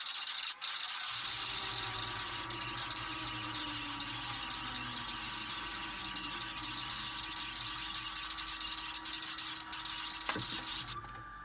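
Harsh, dense static-like noise with a faint steady tone inside it, cutting out abruptly about eleven seconds in.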